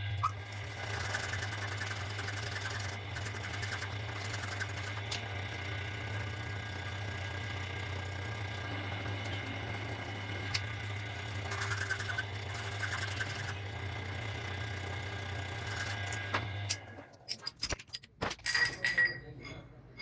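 A workshop machine running with a steady low hum, which stops about seventeen seconds in; scattered short knocks and sharp sounds follow.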